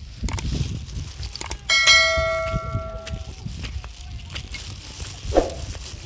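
A single bell-like metallic ring: one sharp strike about two seconds in, ringing on in several clear tones that die away over about a second and a half. A few dull knocks and a low background rumble lie under it.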